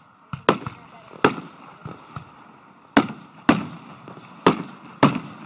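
Aerial firework shells bursting in the sky: six loud bangs at uneven intervals, each with a short echoing tail, and smaller pops between them.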